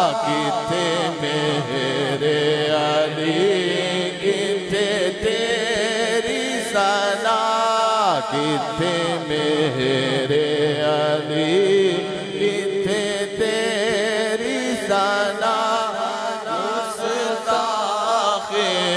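A male reciter chanting into a microphone in long, drawn-out notes that waver with ornaments, with a swooping fall in pitch about eight seconds in.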